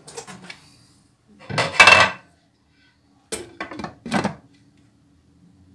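Glass pot lid set onto a pot of boiling cabbage leaves, clattering against the metal rim in a few knocks and clinks, the loudest about two seconds in and more around four seconds.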